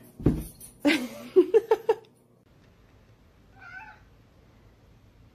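Domestic cat meowing: a thud just after the start, then a run of several quick meows between one and two seconds in, and one short meow near the four-second mark.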